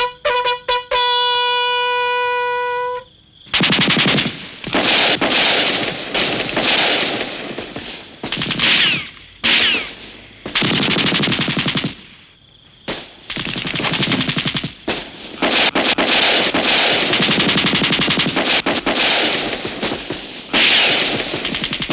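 A bugle call ending on a long held note. About three seconds in, heavy gunfire breaks out: rapid machine-gun bursts and rifle shots that go on with short lulls.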